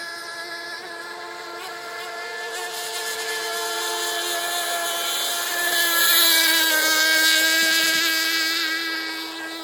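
Radio-controlled model boat's small nitro engine running flat out with a high, steady whine. It grows louder as the boat passes close about six seconds in, then fades again.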